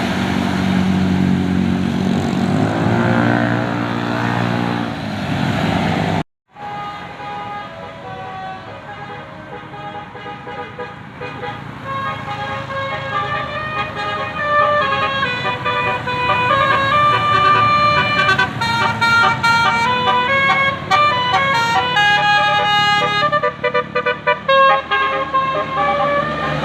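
Road traffic and engine noise, then after a brief cut a bus's telolet basuri multi-note horn playing a quick stepped tune that grows louder.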